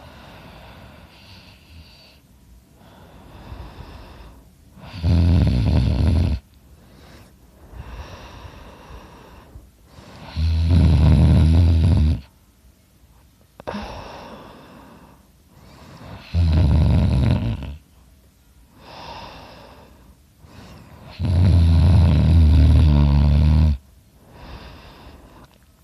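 A sleeping man snoring loudly: four loud snores, one every five to six seconds, each lasting one to two seconds, with quieter breathing between them.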